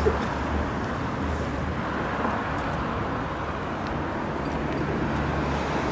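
Car engine idling steadily, a low even hum, with street noise around it.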